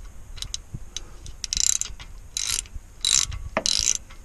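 Hand socket ratchet clicking as it works a quarter-inch Allen bit to back out the retaining bolt on a disc brake caliper. A few light clicks come first, then four louder bursts of ratcheting about half a second apart, starting about a second and a half in.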